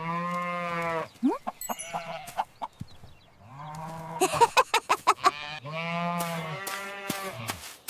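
Farm animals calling: three or four long, level calls of about a second each, with short clucks and clicks between them.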